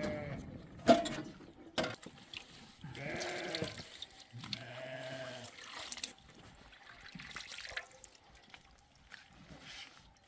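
Livestock bleating twice, the first call about three seconds in and a longer one about a second later. Faint splashing of hand-milking runs underneath. Two sharp knocks come near the start, the first of them the loudest sound.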